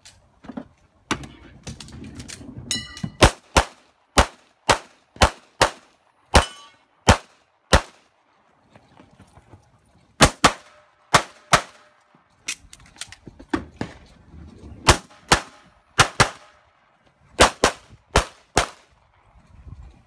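A competitor fires a Limited-division competition pistol in rapid strings, mostly in quick pairs of shots. There is a pause of about two seconds near the middle, and a short metallic ring follows a shot now and then.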